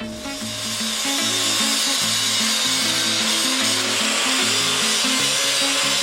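A power tool working steel bar, a loud steady hiss that starts abruptly, with background music underneath.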